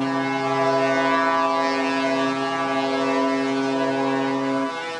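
A ship's horn sounding one long blast at a steady pitch, cutting off sharply near the end.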